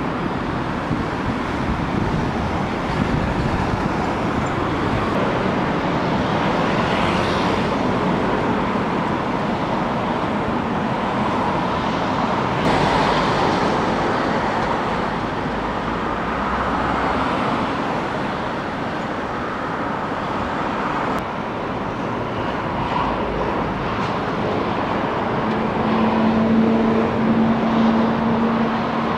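Steady city road traffic noise, with cars passing in slow swells. A steady engine-like hum comes in near the end.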